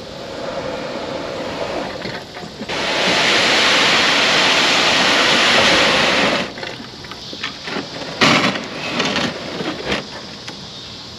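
Fishing kayak's hull grinding up onto a sandy bank: a loud, steady scraping rush for about four seconds that stops abruptly as the boat comes to rest. It is followed by scattered knocks and rustles as the paddler climbs out onto the sand.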